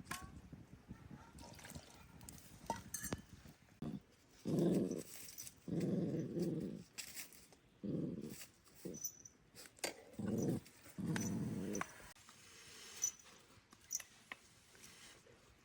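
A dog growling in five short, low bursts, with small clicks and knocks between them.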